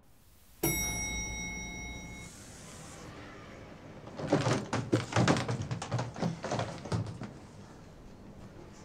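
Elevator arrival chime rings once, fading over about a second and a half, as the lift doors slide open. From about four seconds in, the wheels of hard-shell rolling suitcases rattle and clatter as they are pulled out over the elevator threshold.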